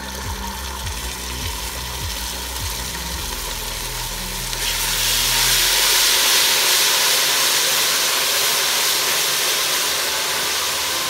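Onions and spices frying in oil in a pot with tomato paste just added. The sizzle swells into a loud steady hiss about four and a half seconds in as the paste is stirred through with a wooden spoon.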